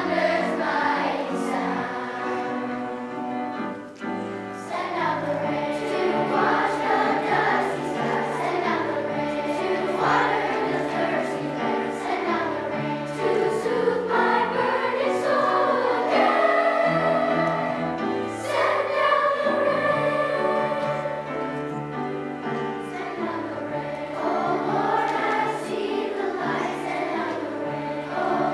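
Children's choir singing a song with instrumental accompaniment, voices holding long notes that rise and fall in pitch.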